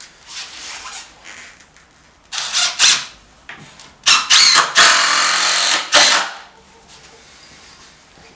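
DeWalt cordless drill driving screws into the wooden frame of a picnic table: a few short bursts of motor whine, then a longer run of about two seconds about four seconds in.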